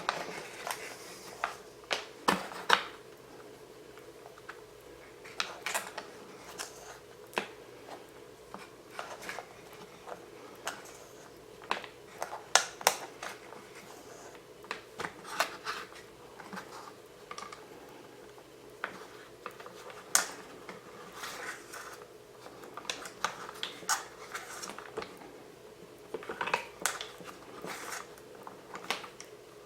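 Irregular clicks, taps and rustles of wires being handled and threaded through a quadcopter frame toward the motors, over a faint steady hum.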